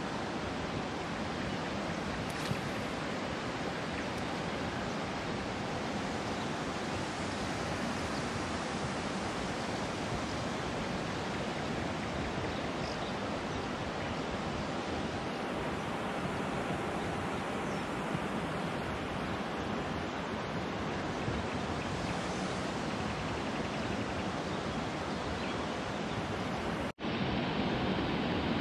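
Steady rush of river water, an even hiss and roar without a break, cutting out for an instant near the end before it carries on.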